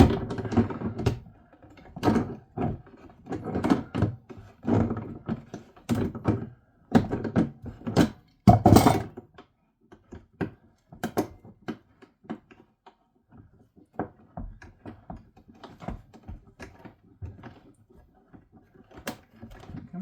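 Irregular knocks and clunks of hand tools working at a stuck fitting on an undersink boiling-water boiler, heavy and frequent for the first half, then lighter, sparser clicks.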